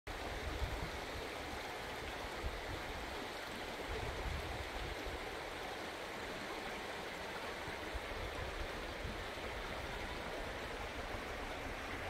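Shallow river running steadily over stones and shallows, an even rushing babble.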